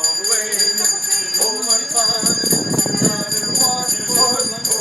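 Handheld Salvation Army bells ringing in a quick, steady shaking rhythm, with voices underneath.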